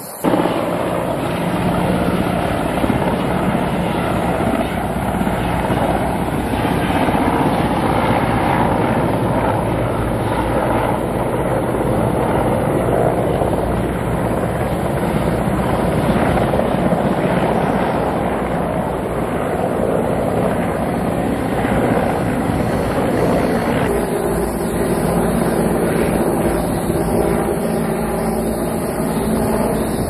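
Firefighting helicopter flying overhead: a steady engine and rotor drone.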